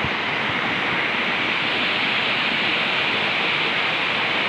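Steady rush of stream water running over rocks, an even continuous hiss.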